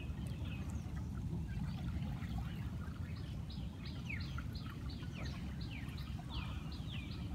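A bird calling over and over: a quick series of short falling chirps, about three a second, starting a couple of seconds in, over a faint low rumble.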